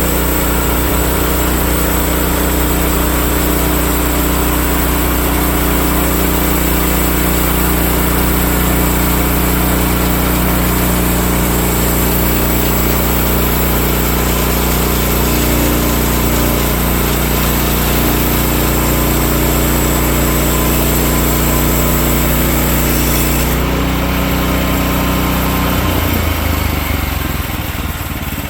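Portable bandsaw sawmill's gas engine running steadily at speed while the band blade saws through a Douglas fir log. About 24 seconds in the high cutting hiss falls away, and near the end the engine note drops as it slows down.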